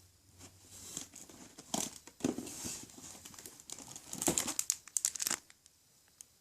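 Packaging crinkling and rustling as items are handled, in irregular bursts with a few sharp clicks, mostly between about two and five and a half seconds in.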